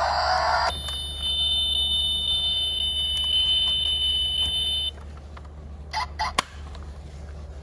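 Toy sound module of a 1/24 diecast Ford Mustang Shelby GT500 model: a rising engine-rev effect cuts off, then a steady high electronic tone sounds for about four seconds and stops abruptly. A few sharp clicks follow about six seconds in, as the model's small door is worked by hand.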